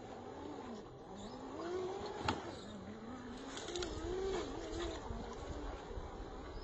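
Electric motor and gear whine of an Austar SCX10 II clone RC rock crawler, rising and falling in pitch as the throttle is worked over rocks, with one sharp click a little after two seconds in.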